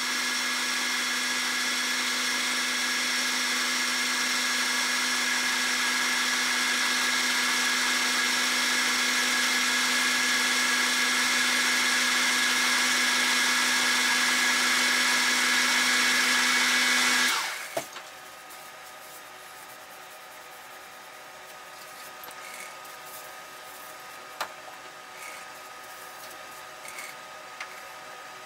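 Metalworking lathe running steadily at about 540 rpm with a steady whine, its chuck spinning a steel column that is being polished with a Scotch-Brite pad. About 17 seconds in the lathe is switched off and the sound falls away quickly. A low background hum with a few light clicks remains.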